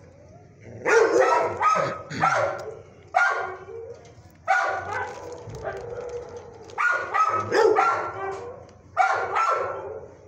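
Dogs barking in shelter kennels: five bursts of several sharp barks each, one every second or two.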